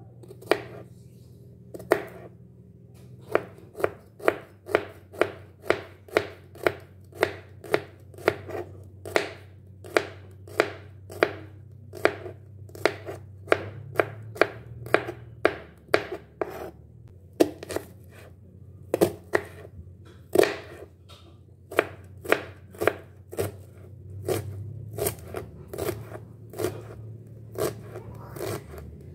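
Kitchen knife slicing garlic cloves, then shallots, on a cutting board: a run of sharp knife taps on the board at about two a second, with a few short pauses.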